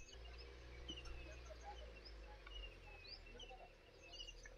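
Faint outdoor ambience: scattered short bird chirps over a low steady rumble.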